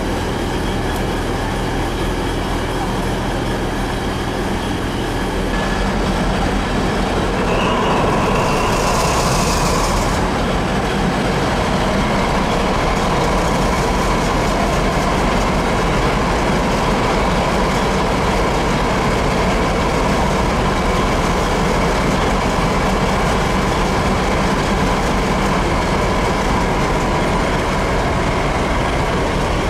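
A train running in a station: a steady low engine hum that grows louder about seven seconds in, with a steady whine and a short hiss of air about eight seconds in.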